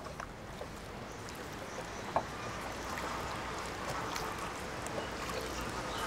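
Rowboat being rowed on a lake: water washing and oar strokes with a steady low rush, and a few light knocks at irregular intervals, the sharpest about two seconds in.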